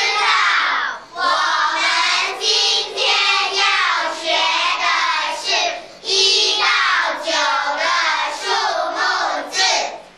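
A group of young children singing together in unison, in sung phrases with short breaks between them.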